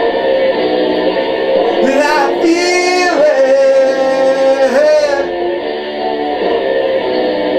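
A song with a sung vocal; about three seconds in, the voice holds one long steady note for about a second and a half.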